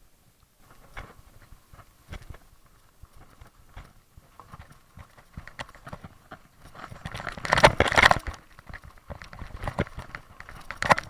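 Mountain bike rattling down a rough, leaf-covered forest trail: irregular clattering and knocks as it runs over roots and bumps. The rattling is loudest for about a second around seven to eight seconds in, with another loud jolt near the end.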